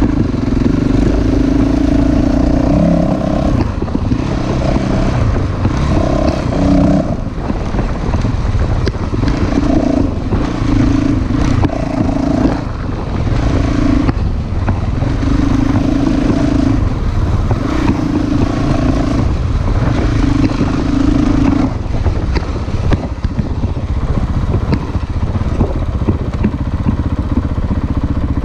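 Honda dirt bike engine running at a steady cruise on a dirt track, its note holding for a second or two at a time with short dips as the throttle eases, over continuous low rushing noise. The pitched engine note fades out about two-thirds of the way through, leaving the rushing noise.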